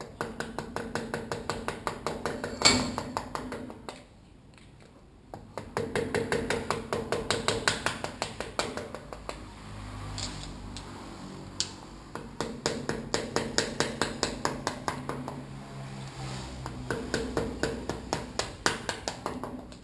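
Quick runs of light hammer taps on metal, several a second, each with a short ringing tone, knocking at a stuck damper valve body inside a damaged upside-down fork leg. One harder blow lands about three seconds in, and the runs stop briefly twice.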